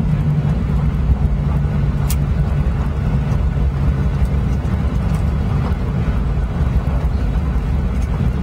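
Cabin noise of a Boeing 737-800 rolling along the ground after landing: a steady low rumble with a constant engine hum.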